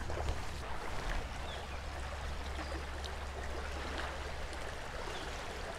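Shallow river water running over rocks: a steady rush of current with a low undertone.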